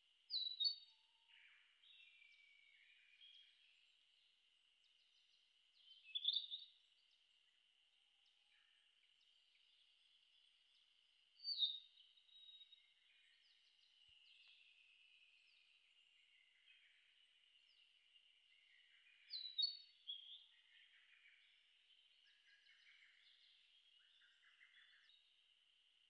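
Male narcissus flycatcher singing, four short, louder song phrases spaced several seconds apart, with quieter notes in between, over a steady high-pitched hum.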